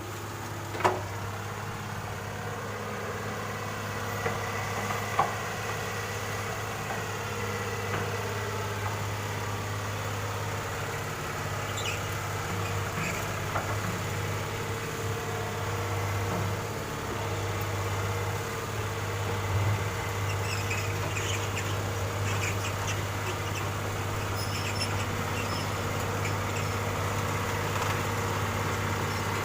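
Excavator's diesel engine running steadily, with a few short, sharp knocks.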